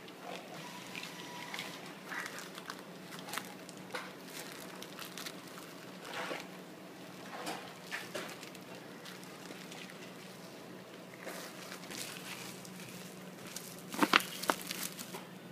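Steady low electrical hum of the cup-noodle vending machine, with scattered light clicks and taps. Near the end come a quick run of louder sharp clicks and plastic crinkling as a hand reaches into a plastic bag.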